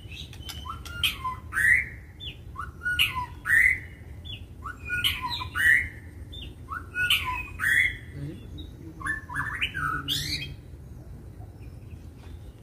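White-rumped shama (murai batu) calling in aggressive 'fighter' style. A phrase of a rising whistled note with harsh rasping notes comes about every two seconds, five times, and stops about ten seconds in.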